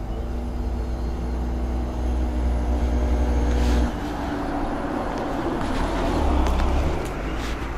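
Road traffic: a steady engine hum that stops about four seconds in, then the rush of a vehicle going by, swelling and fading, over a constant low rumble.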